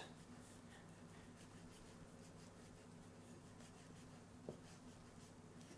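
Faint scratching of a knife blade scoring around an avocado, the edge running against the hard seed, over a faint steady low hum. One light tap about four and a half seconds in.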